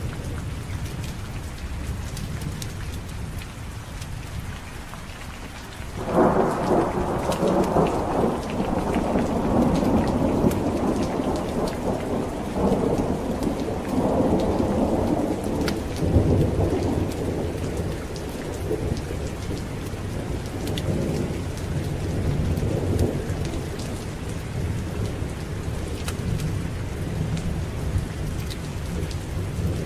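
Steady rain with a long roll of thunder that breaks in suddenly about six seconds in, rumbles on with several swells, and fades away over the next fifteen seconds or so.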